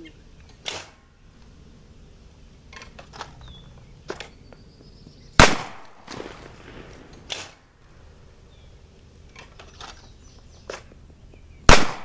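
Two shotgun shots from a Benelli Nova 12-gauge pump, about six seconds apart, fired at clay rabbits rolling across the ground, each a sharp crack with a short echoing tail. A few fainter clacks come between them.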